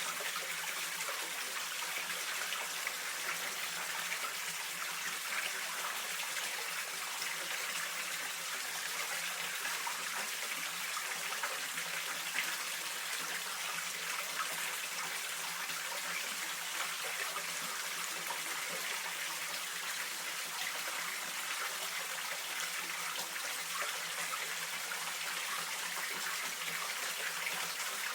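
Mountain stream water flowing and splashing in a steady, unbroken rush.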